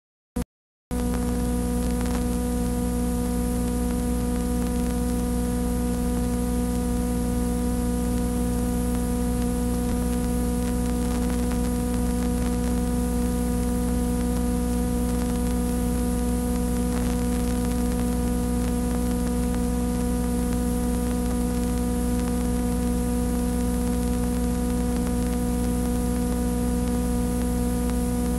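Loud, steady electrical mains hum with a buzzy stack of overtones and tape hiss, from a VHS tape transfer. It sets in less than a second in, just after a brief click.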